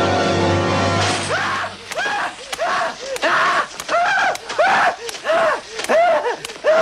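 A man screaming in short, repeated shrieks, about two a second, each rising and then falling in pitch, with sharp slaps among them. Sustained music breaks off about a second in.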